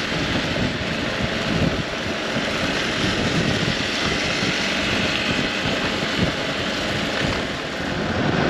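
Motorcycle on the move, most likely a Hero Xpulse 200 4V: a steady rush of riding wind over the microphone, with the engine running underneath at an even pace.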